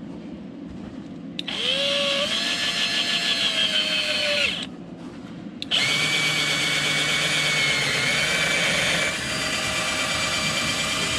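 Cordless drill spinning a bit through the rubber sole of a roller skate boot, boring holes for the plate's mounting bolts. It runs twice, about three seconds and then about six seconds, with a short pause between.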